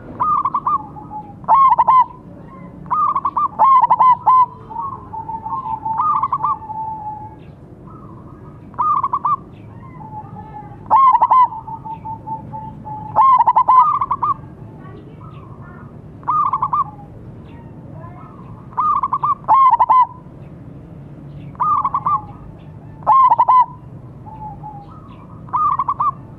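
Zebra doves (perkutut), a silver-coloured bird and a local one, cooing in duel: loud short bursts of rapid coo notes every two to three seconds, with softer rolling trills in between.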